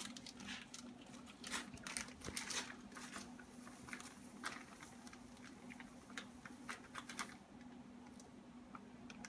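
Plastic bag of dry malt extract crinkling and crackling as it is squeezed and shaken empty into a bowl. The crackles come thick for the first few seconds, then thin out to scattered ones.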